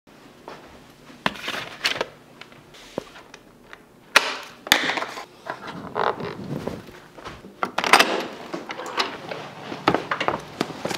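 Handling noise from a Onewheel electric board being gripped, lifted by its handle and carried: scattered knocks, clacks and rustling, with sharper knocks about four and eight seconds in and footsteps near the end.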